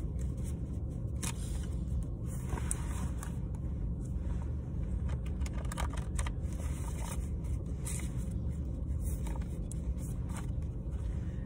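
Tarot cards being shuffled by hand: repeated short scraping and riffling strokes, over a steady low rumble inside a car.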